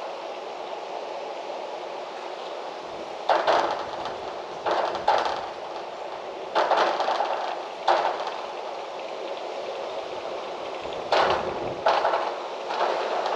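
Wind blowing with a steady rush, broken by sudden loud gusts every second or two, some with a low rumble.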